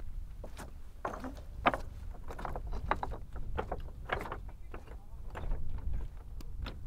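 Footsteps on loose talus: boots crunching and knocking on rocks that clatter against each other underfoot, in an irregular run of sharp strikes. A steady low wind rumble lies under them.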